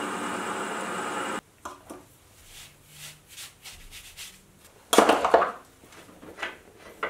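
Sieg X2.7L mini mill drilling into cast iron: the motor and the cutting run steadily, then stop suddenly about a second and a half in. After that come light scraping and handling sounds, with a loud brushing scrape about five seconds in as the cast iron chips are swept off the workpiece, and a short click near the end.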